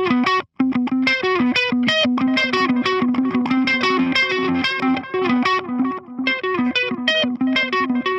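Electric guitar played through the clean channel of the Brainworx Diezel VH4 amp-sim plugin with the bright selector on: quickly picked single notes in a repeating pattern, with a brief break about half a second in.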